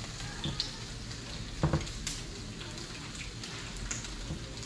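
Bacon sizzling steadily on a flat-top griddle. A couple of soft knocks come through, about half a second and nearly two seconds in.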